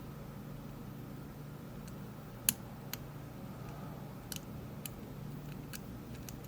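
Small, sharp clicks of a lock pick and tension tool working the pins of a Rav Bariach LocXis pin-in-pin euro cylinder, a handful of scattered clicks with the loudest about two and a half seconds in, over a steady low hum.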